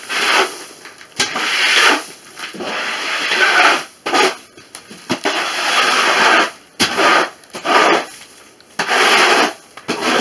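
A long-handled rake scraping straw and litter across a chicken coop floor in repeated strokes, about six of them, each a second or so long.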